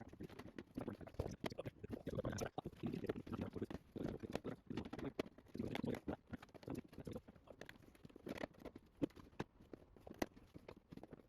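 Irregular clicks, taps and scratchy rustling of hands working with small parts, with no steady machine sound.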